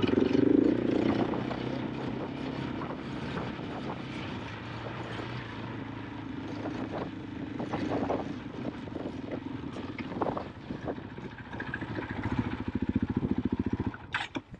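KTM 500 EXC-F dirt bike's single-cylinder four-stroke engine running on a trail. The revs ease off after the first second or two, hold low and steady, then pick up again near the end, with a few scattered knocks.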